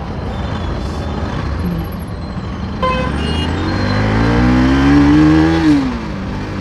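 Bajaj Pulsar NS200's single-cylinder engine pulling away in traffic, its note rising steadily for about two seconds and then dropping off. A vehicle horn toots briefly about three seconds in.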